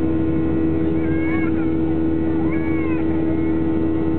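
Steady drone of a Boeing 737-700's CFM56-7B jet engines and airflow, with a constant hum tone over a smooth rushing noise, as the airliner climbs after takeoff.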